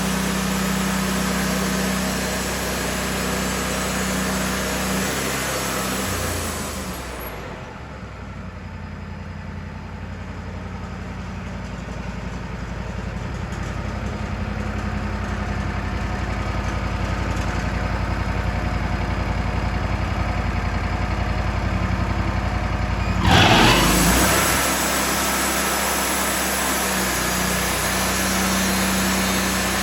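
Wood-Mizer LT40 portable sawmill's engine running at speed. About seven seconds in it drops to a low idle, then about twenty-three seconds in it is brought back up with a sudden loud surge and runs steadily again.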